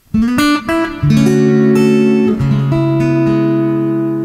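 Background music of acoustic guitar: a quick run of plucked notes, then ringing chords that change about a second in and again halfway through.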